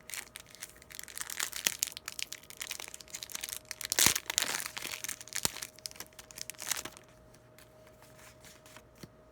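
Foil Pokémon booster pack wrapper crinkling and being torn open, a dense crackle with its loudest crunch about four seconds in, fading out after about seven seconds.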